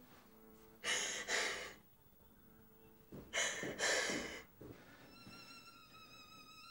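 A woman crying: two sobbing breaths about a second in and two more near the middle. Then high held violin notes with vibrato come in about five seconds in.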